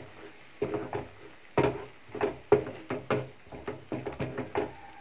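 Wooden spatula stirring thick, wet tomato-onion masala in a nonstick kadai: a rhythmic run of scraping strokes, about two to three a second, starting about half a second in.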